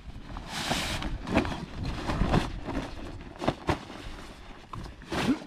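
Wind rumbling on the microphone, with scattered knocks and clicks of gear being handled.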